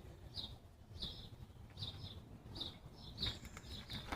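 Small birds chirping, a series of short high calls repeating about twice a second, with a few soft clicks near the end.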